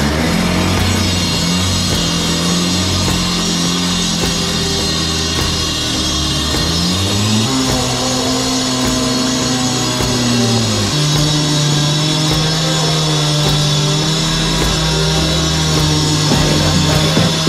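Rock music with drums, and a bass line that holds long notes and shifts pitch a few times.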